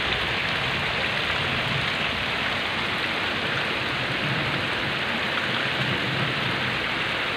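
Heavy rain falling steadily onto puddled, muddy ground: an even, unbroken hiss.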